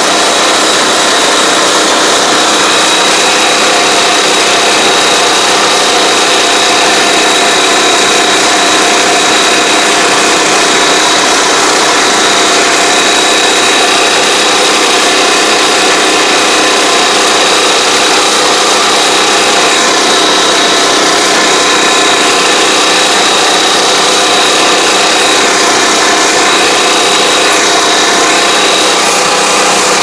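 Small engine of a riding crop sprayer running steadily at a constant speed while it drives and sprays, with a steady high-pitched whine over the engine note and a dense hiss.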